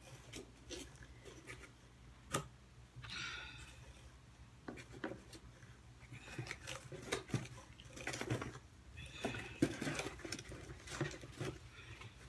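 Light handling sounds of small figurines being lifted out of a cardboard box: scattered clicks and knocks, with a sharper knock about two seconds in, and brief rustles of packaging.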